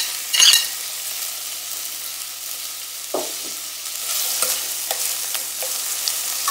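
Chopped onion sizzling in hot oil in a stainless steel pot, with a spoon clinking on a china plate just after the start, then knocking and scraping against the pot as the onion is stirred.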